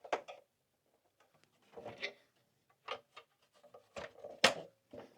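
Handling noise from PlayStation 5 parts during reassembly: a series of separate sharp clicks and knocks of parts being fitted and set down, the loudest about four and a half seconds in.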